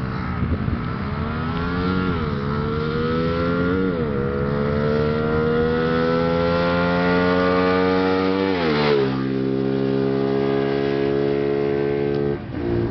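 Bajaj Pulsar 220 DTSi's single-cylinder four-stroke engine, breathing through a K&N aftermarket air filter, pulling up through the gears. The pitch climbs with two short dips at gear changes, then rises in one long pull. About nine seconds in it drops sharply and settles into a steady lower run.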